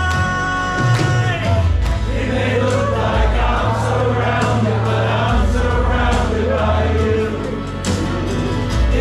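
Live worship music: a band with a strong, steady bass and a group of voices singing. Held notes in the first second or so give way to singing about two seconds in.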